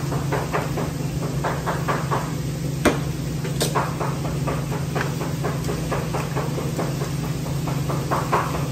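A knife chopping cooked chicken on a cutting board in quick, even strokes, about four knocks a second, with one harder knock about three seconds in. A steady low hum runs underneath.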